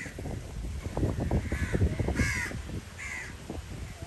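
Crows cawing, four harsh caws in quick succession, over a low rumbling and knocking noise.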